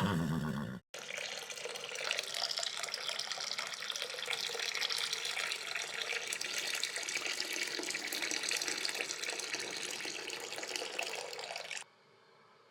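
Hot water poured over a doll's hair set in curlers, splashing steadily into a sink for about ten seconds, then cutting off suddenly. It is preceded by the brief tail of a horse-whinny sound effect with music.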